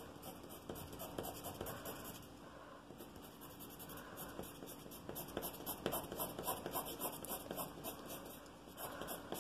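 Pencil scratching on paper in quick, short back-and-forth strokes as cross-hatching lines are laid over a shaded area. The strokes come faster and denser in the second half.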